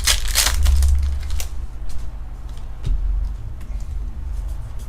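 Crinkling and crackling of Pokémon booster pack foil and cards being handled, loudest in the first second or so, then a few scattered light clicks.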